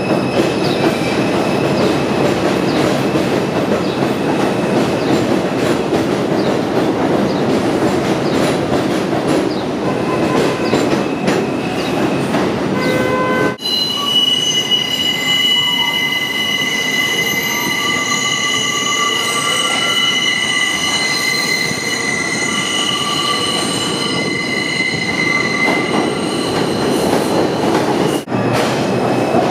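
A New York City subway train running with a steady rumble of wheels on rails. About halfway through, the sound changes abruptly to steel wheels squealing in several long, high-pitched tones, which last until shortly before the end.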